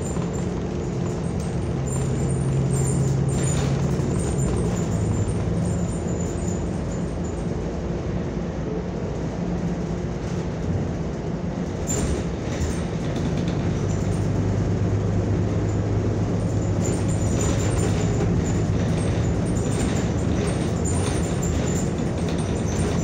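Inside a moving New Flyer XN40 city bus: the natural-gas engine's steady low drone, shifting a little in pitch, over road noise, with occasional rattles from the body and windows.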